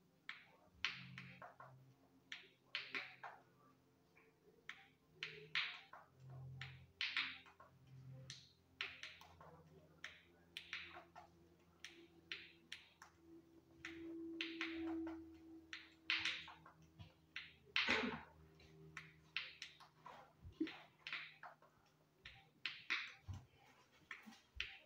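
A plastic fidget spinner being popped over and over between the fingers: sharp, irregular clicks, about one or two a second, with the sharpest pop about two-thirds of the way through.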